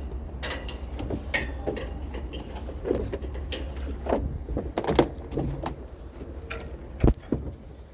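Irregular knocks, clicks and clatter of objects being handled, over a steady low hum; the sharpest knocks come about five seconds in and again near seven seconds.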